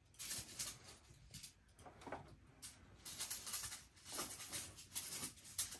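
Faint, irregular rustling and light clicking, like papers or small objects being handled.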